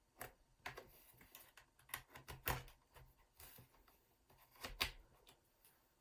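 Faint, irregular clicks and taps of the laptop's plastic rear casing being pried against its metal frame as the snap clips are worked loose, the loudest a couple of sharp clicks in the middle and near the end.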